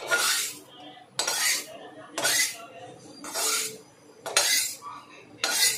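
Flat metal spatula scraping the inside of a metal kadai in repeated strokes, about one a second, as crumbly roasted sattu filling is scraped out of the pan.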